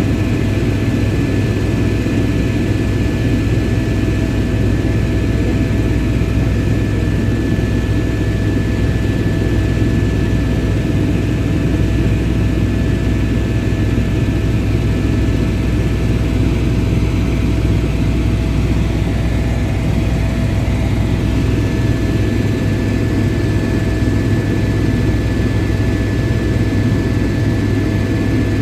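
Helicopter in level flight, heard from inside the cockpit: a steady, loud low drone of rotor and engine with constant high-pitched tones over it.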